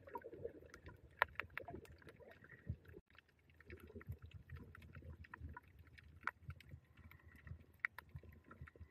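Quiet underwater sound picked up through a camera's waterproof housing: a low, muffled rumble of moving water with many small sharp clicks and crackles scattered throughout. The sound drops out for a moment about three seconds in.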